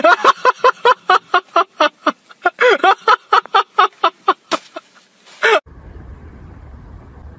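A voice making rapid short syllables, about four or five a second, which stops abruptly about five and a half seconds in, leaving a faint low steady rumble.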